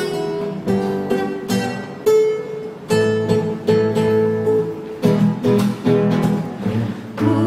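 Acoustic guitar strumming chords at a steady pace, about two strums a second, with no singing yet: the instrumental introduction to a hymn.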